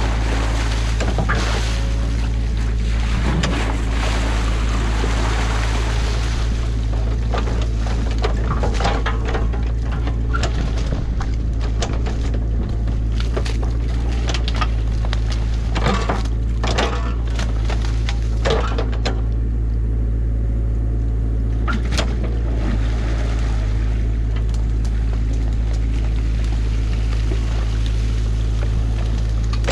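Excavator engine running steadily while its bucket tears into a beaver dam of sticks and mud. Water pours through the breach, and branches crack and snap in quick bursts through the middle.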